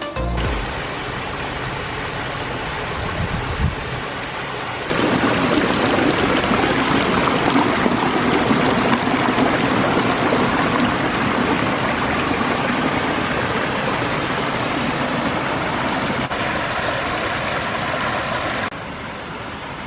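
Water running and splashing down a pondless waterfall, a steady rushing that jumps louder about five seconds in and drops back abruptly near the end.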